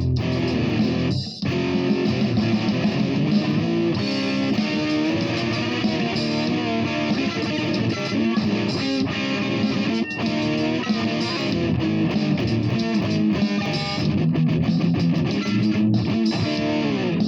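Electric guitar playing continuously, with notes that slide in pitch in places and a brief break about a second in.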